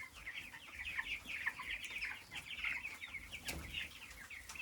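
A flock of broiler chickens calling together: many short, high peeps and clucks overlapping in a continuous chorus.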